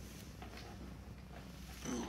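Soft rustling of a hand stroking a cat's fur against a fleece blanket, over a low steady hum, with a brief louder sound near the end.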